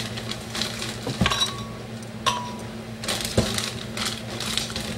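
Frozen strawberries dropped one by one into a hard container, each landing with a sharp clink, several about a second apart. A steady low hum runs underneath.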